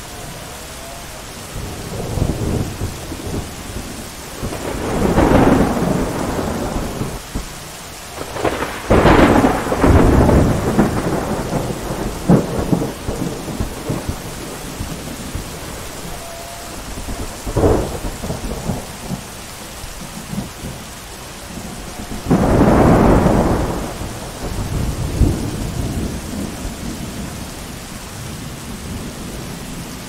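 Thunderstorm: steady rain with repeated thunder. A sharp crack about nine seconds in rolls into rumbling, a shorter crack comes near the middle, and a long rumble swells about two-thirds of the way through.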